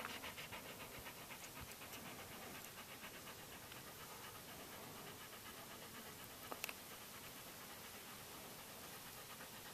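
Border collie panting in a quick, even rhythm, clearest in the first few seconds and then fainter. A single sharp click about six and a half seconds in.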